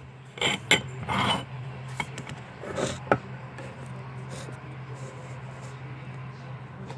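Small kitchen items being handled: a few sharp clicks and rustling scrapes in the first three seconds, then only a steady low hum.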